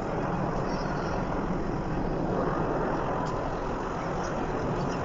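Several helicopters flying overhead in formation, their rotors and engines making a steady, even noise.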